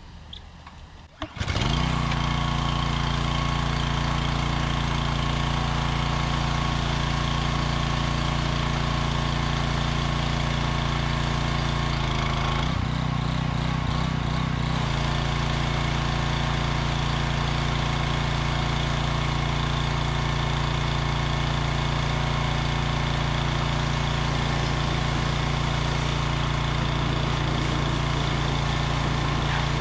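Briggs & Stratton EXI 875 engine on a Husqvarna PW3100 pressure washer pull-started, catching on the first pull about a second and a half in and then running steadily, with the hiss of the water spray. Its note changes briefly about halfway through before settling again.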